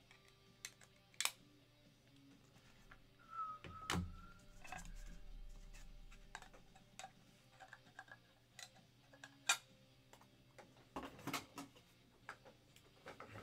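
Scattered light clicks and taps from hands handling things at a desk, with a louder knock about four seconds in and a cluster of clicks near the end.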